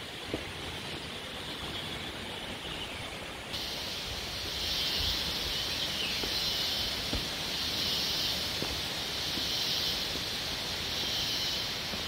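Rainforest insects buzzing, a high steady drone that starts about three and a half seconds in and slowly swells and fades, over a steady low rush of background noise.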